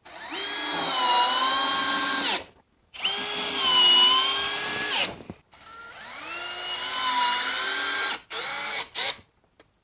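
Cordless drill driving screws to mount a bench vise on a plywood top: three runs of about two seconds each, the motor whine dipping and rising in pitch, then two short bursts near the end.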